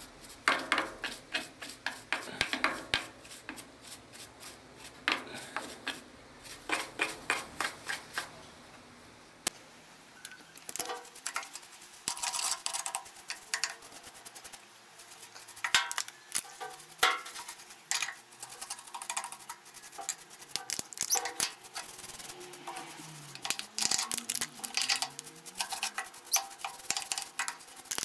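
A brush scrubbing the grimy metal mechanism of an old Elgin sewing machine, worked in diesel oil: bursts of quick back-and-forth scraping strokes with short pauses between them.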